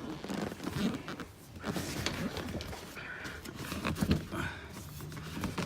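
Rustling and a few short knocks and clicks as a car's rear seat bottom cushion is worked free of its clips and lifted.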